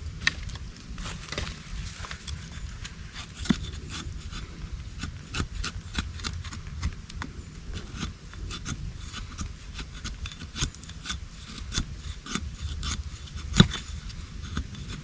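Axe blade shaving thin curls down a stick of wood to make feather sticks: a quick run of short scraping strokes. There is a sharper knock about three and a half seconds in and a louder one near the end.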